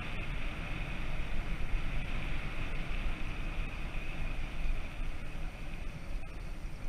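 Steady wind buffeting on the microphone of a camera on a moving bicycle, with tyre noise from rolling on pavement.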